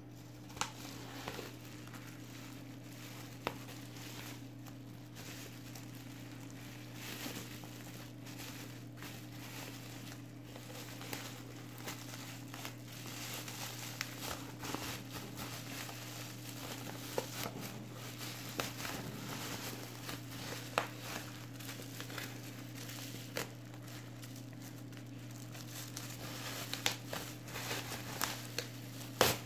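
Plastic bubble wrap crinkling and rustling as it is handled and pulled off a box, with scattered sharp crackles throughout and the sharpest one near the end. A steady low hum runs underneath.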